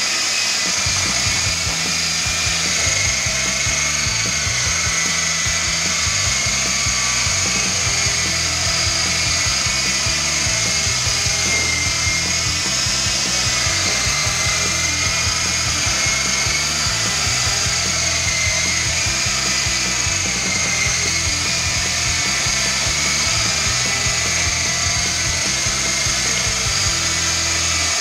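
Electric motors and gears of an Art-Tech MD500 coaxial RC helicopter whining steadily in flight, the pitch wavering slightly as the throttle shifts. Background music with a bass line plays along.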